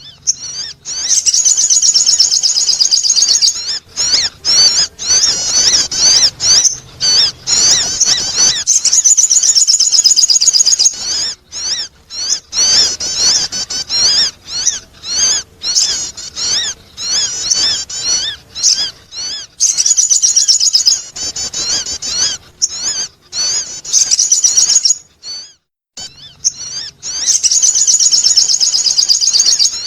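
Sogon bird singing a lure call: a loud, rapid, high-pitched chattering warble of quick up-and-down notes, in long phrases broken by short pauses.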